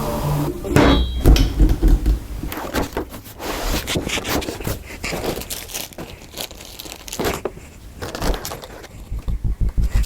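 Graphics-card retail packaging being handled and opened: irregular crinkling and rustling of cardboard and plastic with scattered knocks, the heaviest ones about a second in.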